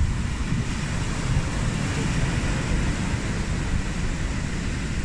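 Wind buffeting the microphone over the steady rush of surf breaking on a sandy beach.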